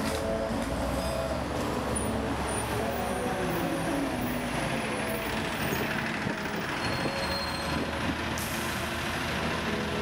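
City street traffic: vehicles passing and running along the road, a steady mix of engine and tyre noise.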